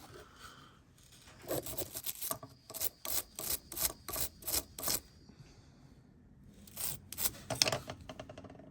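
Short rubbing strokes in two runs, roughly two or three strokes a second: the first run lasts about three and a half seconds, the second starts after a short pause and lasts about a second.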